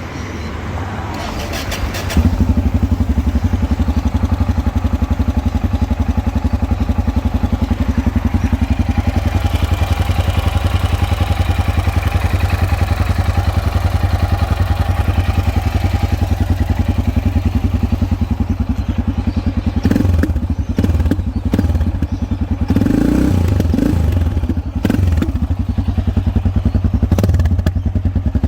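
Yamaha XT 660 R's 660 cc single-cylinder four-stroke engine running through its exhaust with a steady low pulsing beat. It gets louder about two seconds in, and a few irregular knocks and short surges come about two-thirds of the way through.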